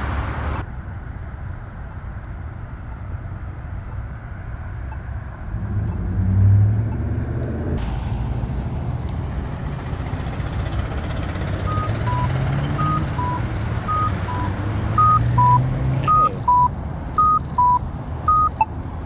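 Traffic running past a crosswalk, then about twelve seconds in a Polara iNS accessible pedestrian signal push button sounds its cuckoo walk tone: a higher then lower electronic note, repeated about once a second, seven times, indicating that the walk signal is on.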